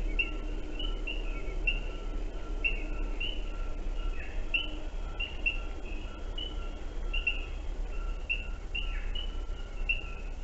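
Wild birds calling: short chirps repeating about twice a second, with a row of lower, evenly spaced notes, over a steady low hum.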